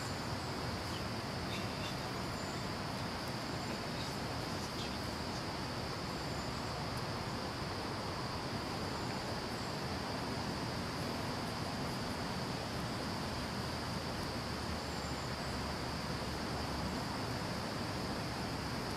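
Insects trilling in a steady, unbroken high-pitched drone over constant outdoor background noise.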